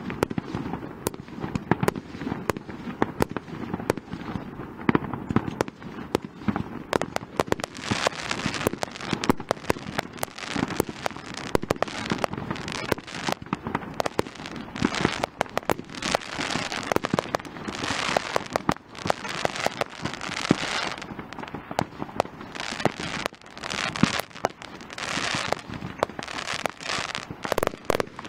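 Fireworks display: a rapid, irregular run of bangs from bursting shells, with several stretches of dense crackling.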